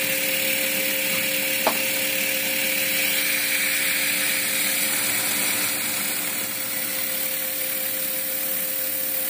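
Bridgeport-clone milling machine running steadily as a half-inch solid carbide end mill cuts a slot in silicon bronze. Its steady hum is mixed with the constant hiss of an air and coolant mist blowing on the cut. There is one short click about a second and a half in.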